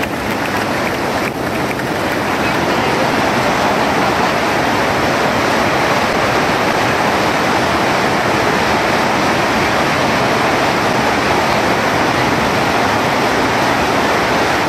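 Steady rushing water in the shallow transparent pool overhead, stirred by performers sliding and swimming through it.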